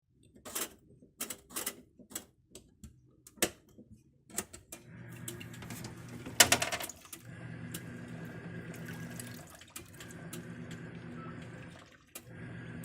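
Plenna washing machine: a series of sharp clicks, then a steady hum with running water as the machine starts filling. The hum drops out briefly a few times, and one loud clack comes about six and a half seconds in.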